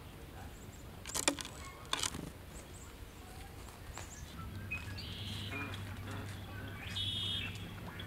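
Wild birds calling outdoors: two short, sharp calls about one and two seconds in, then quicker high-pitched calling through the second half over a low steady hum.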